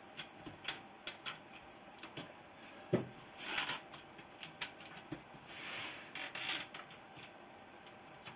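Small clicks, taps and short rubbing scrapes as hands work the wooden ribs on their jig board, with one sharper knock about three seconds in.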